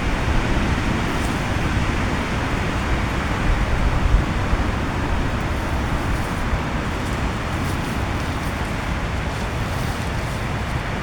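Heavy rain and strong wind: a dense, steady hiss of rain with a low rumble of wind beneath it.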